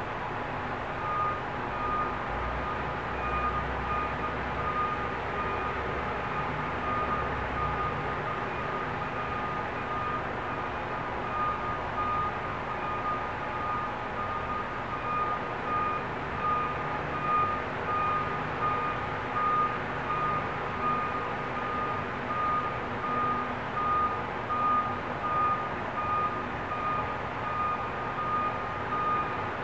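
Vehicle reversing alarm beeping steadily in evenly spaced repeated beeps, over a steady background hiss.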